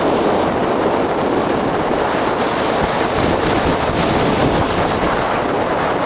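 Steady rush of wind buffeting the microphone as the camera moves fast down the road.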